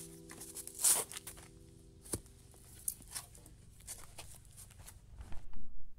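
The last acoustic guitar chord dies away over the first second or so, followed by scattered clicks, taps and rustles, with the sharpest noise just under a second in and a cluster of taps near the end.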